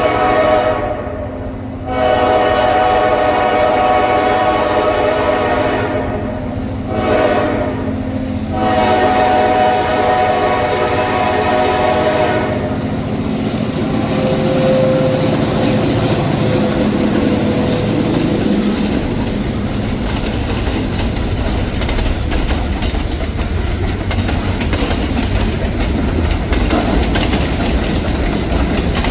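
Freight train locomotive's air horn sounding the grade-crossing pattern: the end of one blast, a long blast, a short one, then a final long one. The horn stops about twelve seconds in, and the locomotives and cars rumble by with wheels clacking over the rail joints.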